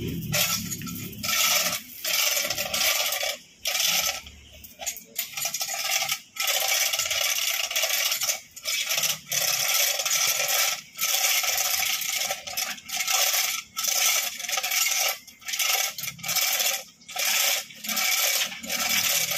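Hand-chain hoist (chain block) being pulled while lifting an engine: its steel chain rattles and clinks through the block, broken by short pauses roughly every second between pulls.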